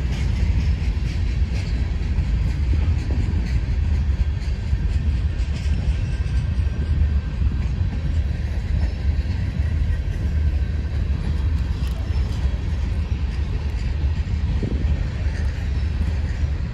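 Freight train rolling slowly past: a steady low rumble of wheels and cars on the rails, with faint scattered clicks.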